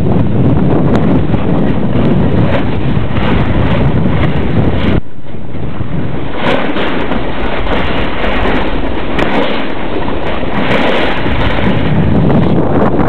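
Wind buffeting the microphone of a camera carried by a downhill skier, mixed with skis scraping over hard-packed snow; loud and continuous, easing briefly about five seconds in.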